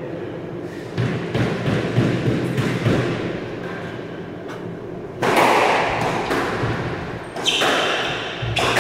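Squash ball being hit: lighter knocks at first, then from about five seconds in a rally of sharp racket strikes and smacks of the ball off the court walls, each ringing briefly in the enclosed court.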